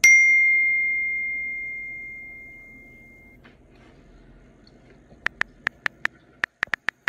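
A single bright bell-like ding that rings and fades away over about three seconds, followed near the end by a quick run of about ten short ticks.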